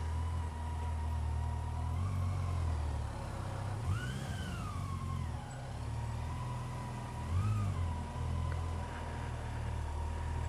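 Motorcycle engine running at low speed with a steady low drone and a faint steady whine, its revs rising and falling briefly twice with the throttle, about four seconds in and again near seven and a half seconds.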